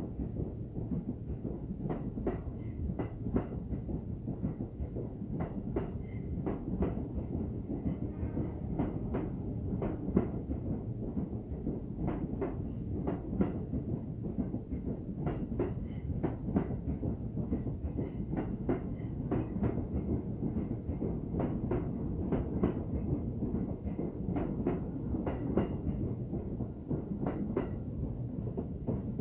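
Electric commuter train running past close by: a steady rumble of wheels on rail, with many sharp clicks and knocks as the wheels cross rail joints.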